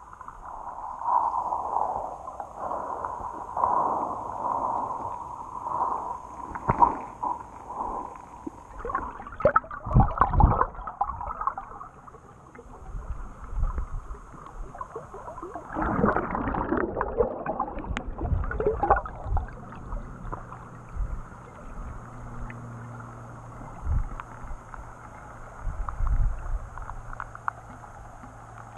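Muffled underwater sound of river water moving around a submerged GoPro Session camera: uneven gurgling and sloshing surges with a few dull low knocks. A faint steady low hum joins about two-thirds of the way in.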